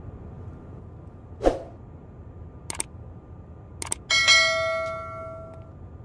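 Subscribe-button animation sound effect: a soft pop, then two quick double mouse clicks, then a notification bell ding about four seconds in that rings out and fades over a second and a half.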